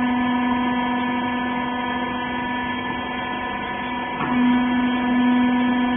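Hydraulic cotton-wiper baler's electric motor and pump running with a steady hum. About four seconds in, the tone dips briefly and then comes back a little louder.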